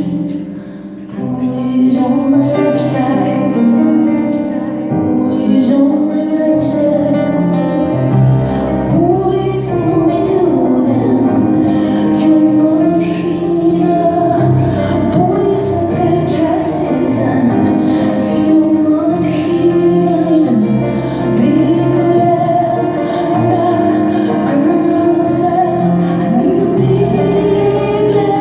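A woman singing live over keyboard accompaniment, recorded on a phone in the audience. The music dips briefly about a second in, then carries on at a steady level.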